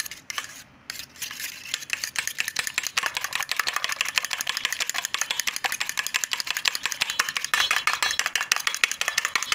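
A metal fork beating eggs in a stainless steel bowl: a fast, steady run of clicks as the tines strike the bowl several times a second, with a brief pause about a second in.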